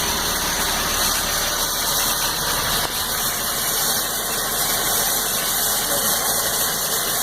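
1995 Pontiac Firebird's 3.8-litre V6 running steadily, with a faint knock hard to make out under the engine noise. The owners diagnosed the knock as a rod knock from the sixth cylinder.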